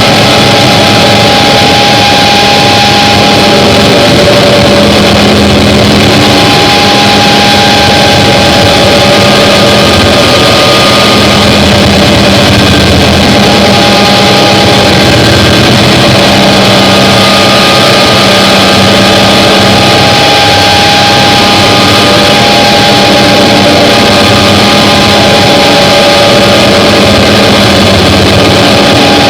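Harsh noise drone music: a loud, unbroken wall of distorted noise with held droning tones that drop out and return every few seconds.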